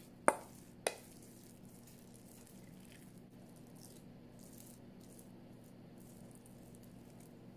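Metal spoon knocking sharply twice against a stainless steel bowl, then stirring through sticky ground pork filling with soft, faint scraping. A steady low hum runs underneath.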